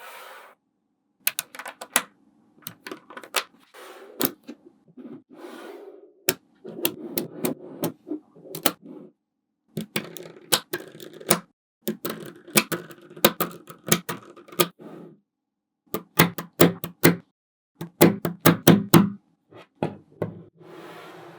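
Small magnetic balls clicking and snapping together as they are placed, in quick clusters of sharp clicks with brief pauses between, and a softer rattle of balls shifting under the clicks.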